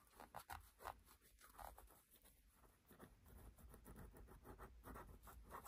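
Faint scraping and scratching of a blunt screwdriver tip working old Sony glue off a phenolic circuit board, in a series of short, irregular strokes.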